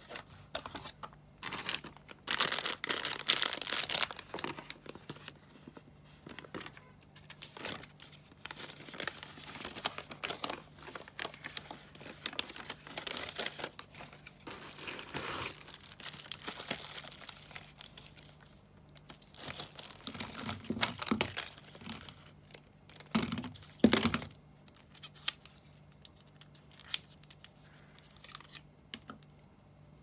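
Hands crinkling and tearing open clear plastic packaging around cosmetics, dense and crackly, with a loud stretch a couple of seconds in and sharper bursts about two-thirds of the way through. Near the end it thins to scattered light clicks and taps.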